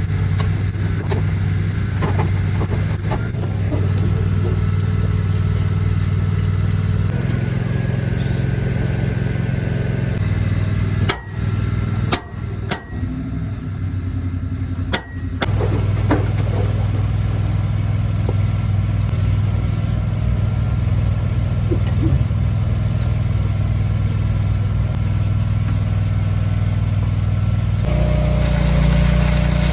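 An engine idling steadily, with its sound dropping out briefly a few times in the middle and shifting near the end.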